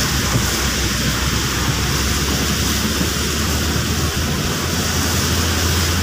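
Heavy rain falling on a moving car, heard from inside the cabin as a steady hiss over the low rumble of the engine and tyres on the wet road.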